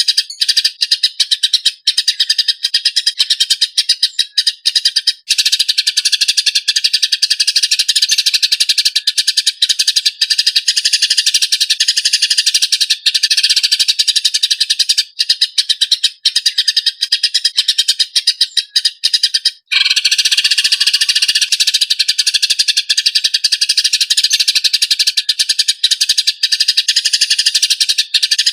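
Eurasian tree sparrows chattering in a fast, harsh, dense stream: the agitated chatter of fighting sparrows. It breaks off for an instant about two-thirds of the way through.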